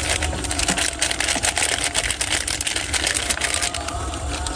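Plastic sachet wrapper crinkling and rustling in rapid crackles as it is squeezed and emptied into a cup. The crinkling stops near the end, leaving a steady low rumble underneath.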